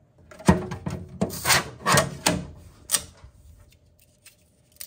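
A 3D-printed plastic part being pried and pulled by hand off the printer's PEI print sheet. It gives a run of rubbing and scraping with several sharp clicks as the print breaks free over about three seconds, then a faint steady hum.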